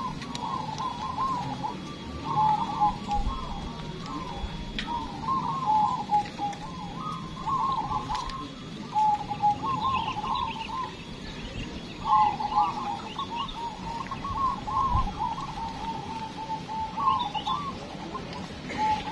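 Many caged zebra doves (perkutut) cooing, their phrases of rapid bubbling notes overlapping almost without a break. A few faint higher chirps come in about halfway through and again near the end.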